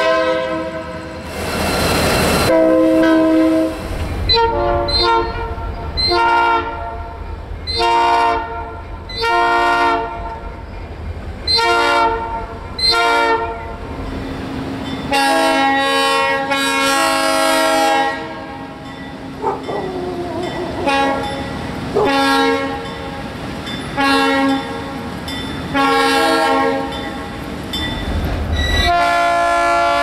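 Diesel locomotive air horn sounding a long series of short blasts, with one long blast in the middle, over the low rumble of the train. Just before the end, another locomotive's horn comes in with a different chord.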